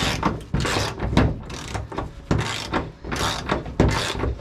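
Socket ratchet wrench worked back and forth in repeated strokes, about one every three quarters of a second, loosening a bolt.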